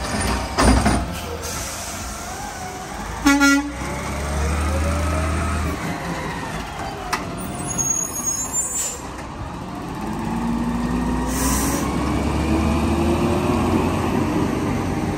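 McNeilus automated side-loader garbage truck: a loud bang as the arm dumps the cart, a short air-brake hiss a few seconds in, then the diesel engine pulling away, its pitch rising steadily as the truck accelerates.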